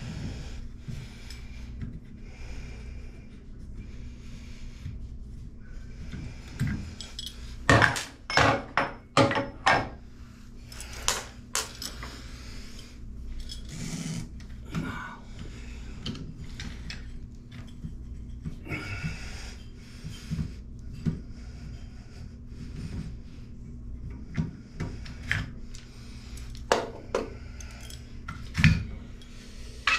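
Metal clinks, taps and scraping from a chrome Moen shower valve trim plate being worked by hand against tile, with a quick run of sharp clicks about eight to twelve seconds in.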